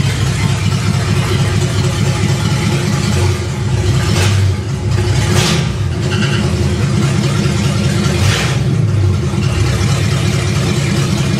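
1968 Ford Mustang's 302 V8 running steadily, with a grinding or unbalanced noise that the owner traces to the C4 automatic transmission's torque converter. The sound swells briefly twice, about four and eight seconds in.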